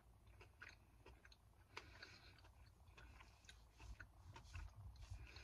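A person chewing a large, sticky, sugar-coated gummy candy: faint, irregular mouth clicks and smacks.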